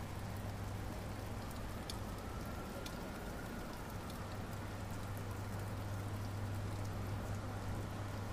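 Steady rain falling, with a few scattered drip ticks, over a constant low hum.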